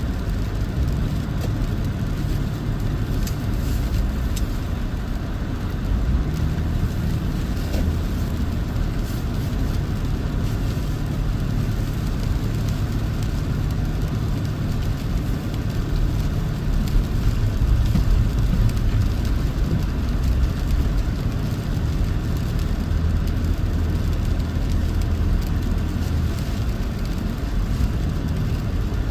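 Toyota 4Runner driving on a snow-covered road: a steady low engine hum that shifts in pitch now and then, over constant tyre and road noise.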